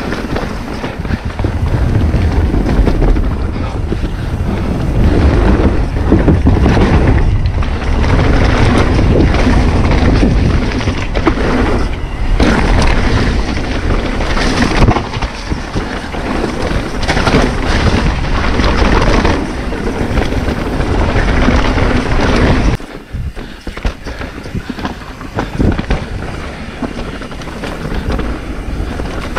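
Mountain bike descending a rough dirt and rock trail: wind rushing over the camera's microphone, tyres rolling over the dirt, and the bike rattling and knocking over bumps. It eases for a few seconds about three-quarters of the way through.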